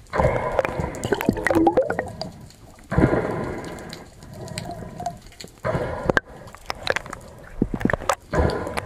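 Water sloshing and gurgling around the camera in the sea, coming in surges every two to three seconds, with scattered drips and pops.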